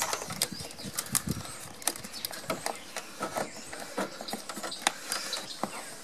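Wires being handled and pulled through a motorcycle frame: irregular light clicks, taps and rustling as the cables rub and knock against the frame and parts.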